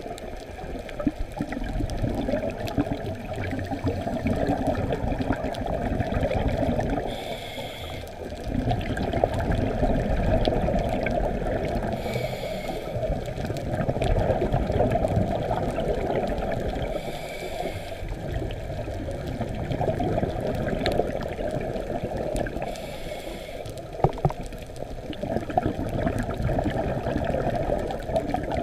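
Scuba diver breathing through a regulator, heard underwater: a short hiss of inhaling about every five seconds, four times, each followed by a few seconds of gurgling exhaled bubbles. One sharp click sounds late on.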